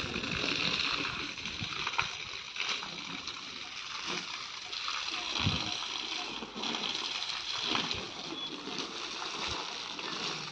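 Jet of water from a garden hose spraying and splattering steadily against a concrete wall and the dirt ground, with a few brief thumps.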